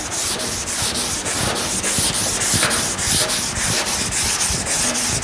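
Hand sanding block with 240-grit paper rubbed in quick back-and-forth strokes, about four a second, over polyester primer on a steel truck fender. This is block sanding through dry guide coat to straighten the panel and show up its low spots.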